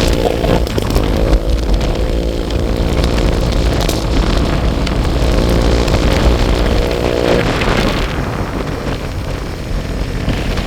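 Motorcycle engine running at a steady cruising speed, its pitch shifting slightly, with wind buffeting the microphone.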